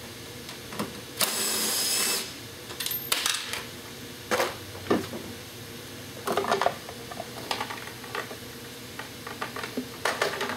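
Hand tools and metal parts clicking and rattling as the last screw and the chaincase cover of a snowmobile are worked loose, in short clusters of clicks, with a brief hiss lasting about a second just after the start.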